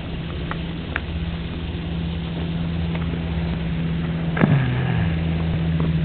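A steady low mechanical hum. About four and a half seconds in, one short, louder sound slides down in pitch.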